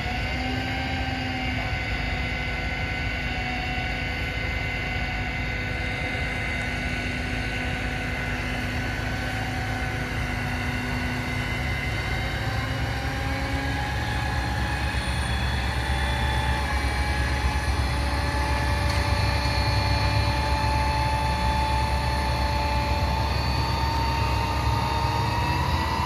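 Truck-mounted crane's diesel engine running steadily with a humming whine as it hoists a cut tree section. Its note rises sharply at the start, and it grows louder and climbs slowly in pitch through the second half as the load is lifted.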